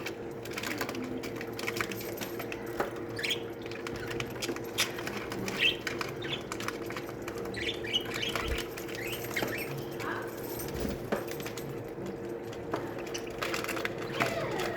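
Budgerigar colony chattering with many short, scattered chirps, mixed with sharp clicks and wing flutters, over a faint steady hum.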